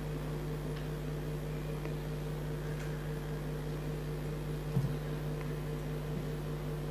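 Steady low electrical hum with faint room tone in a lecture hall, typical of a PA system or ventilation, with one brief faint sound about five seconds in.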